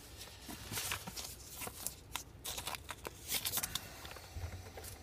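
Trading cards being handled and slid against each other, a series of brief swishes.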